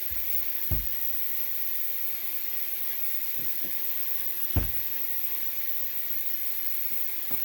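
Two short, low thumps about four seconds apart, the second louder, over a steady hum and hiss.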